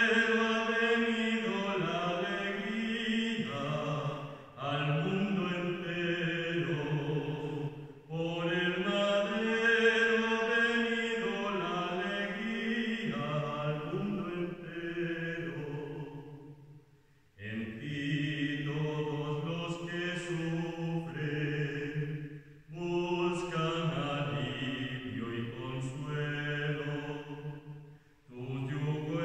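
Sung liturgical chant for Lauds, sung in phrases a few seconds long with short breaks between them.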